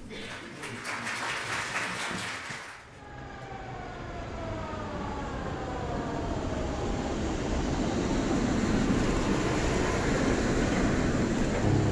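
Train sounds: a rhythmic clatter for about three seconds, then a chord of several tones sliding slowly down in pitch together, like a passing horn, over a rumble that swells steadily louder.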